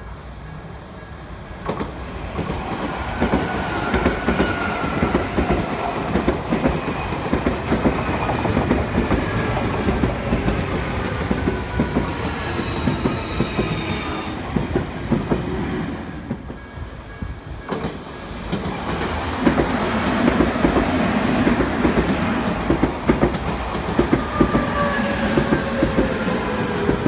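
Two Odakyu electric commuter trains pass close by one after the other: first an 8000 series, then a 2000 series. Each brings a heavy rumble with rapid wheel clatter over the rail joints and a falling motor whine, with a brief lull between the two.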